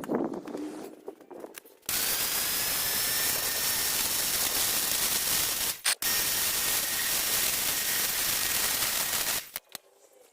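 A high-pressure spray hissing steadily for about seven and a half seconds. It starts and stops abruptly and breaks off briefly near the middle.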